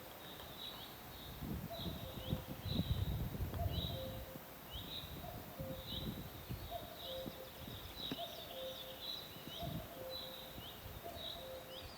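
Birds calling: a steady series of short, high, falling chirps about twice a second, over a lower two-pitch note that repeats every second or so. Bursts of low rumble come and go underneath.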